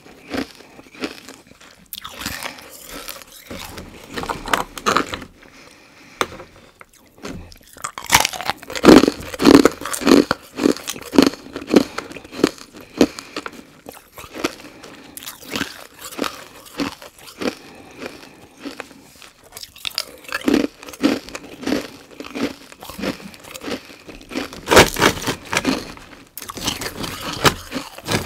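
Carbonated ice being bitten and chewed: loud, brittle crunches coming in bursts, loudest about a third of the way in and again near the end.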